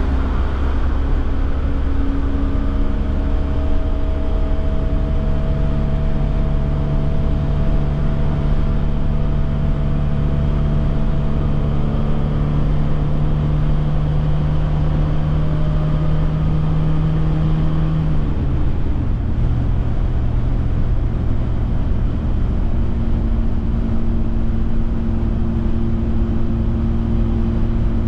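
1966 Alfa Romeo Giulia TI's twin-cam four-cylinder engine running steadily at freeway cruising speed, heard from inside the cabin over a constant road and wind rumble. About eighteen seconds in, the engine note drops in pitch and then holds steady.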